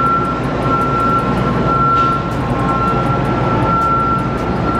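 Steady, loud machinery drone with a constant high-pitched whine running over it.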